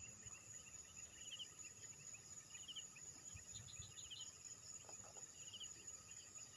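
Faint evening insect chorus: a steady high-pitched drone, with short trills of rapid chirps repeating every second or so.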